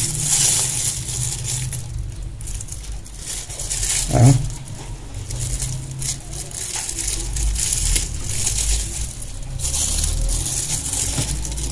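Crinkling of a plastic-bag glove and light metallic clinking and scraping as a wire is worked at a sink's metal drain grate. There is a short vocal sound about four seconds in.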